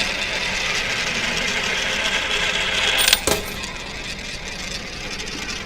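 Steady hissing background noise with a single sharp click about three seconds in, after which the background is quieter.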